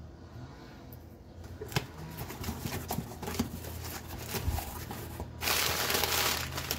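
Paper packaging being handled and unwrapped: scattered rustles and clicks, then a louder stretch of paper crinkling about five and a half seconds in.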